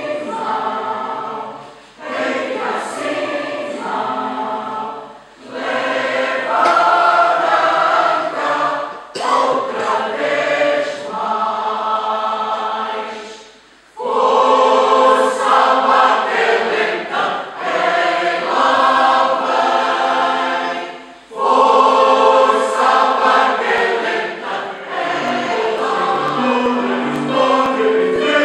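A large mixed choir of more than 70 voices singing, in long phrases broken by short pauses.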